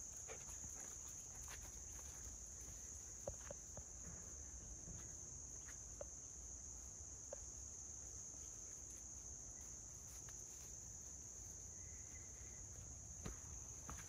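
Steady, high-pitched insect chorus droning without a break, faint, with a few scattered soft clicks and rustles of footsteps on a forest path.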